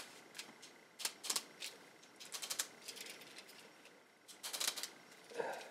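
Faint clicks and rattles of fly rod parts, the cork grip and reel-seat hardware, being pushed and twisted together on the rod blank in a dry fit. They come in three short clusters of quick clicks.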